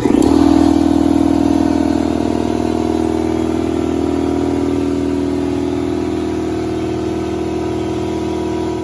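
Ingersoll Rand 60-gallon air compressor's pump kicking on and running steadily, drawing air through a large Solberg FS15075 intake filter housing that gives it a deeper hum, a lot deeper than with the stock filter. It is loudest in the first second, then settles, as it pumps the tank back up from below cut-in pressure.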